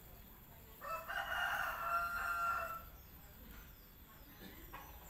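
A rooster crowing once, a single drawn-out call lasting about two seconds that starts about a second in.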